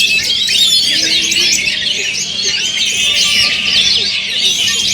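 Dense chorus of several oriental magpie-robins (kacer) singing at once: many overlapping fast whistles, trills and chattering calls with no break.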